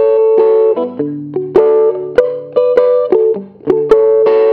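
Custom Gibson ES-330-style hollow-body electric guitar played with a fairly clean amp tone: a slow line of picked single notes and double-stops, several held and left to ring.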